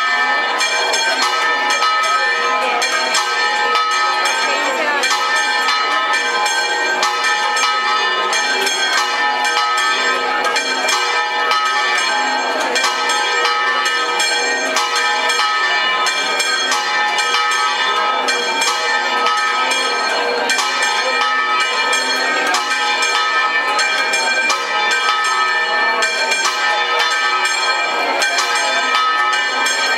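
Church bells ringing a rapid, continuous peal, struck over and over without a break so that the strokes run together into a steady clangour.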